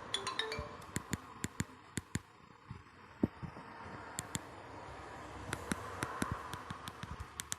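Faint, irregular clicks and taps from handling a Fly FF179 mobile phone and pressing its keys. The last notes of a ringtone die away in the first half-second.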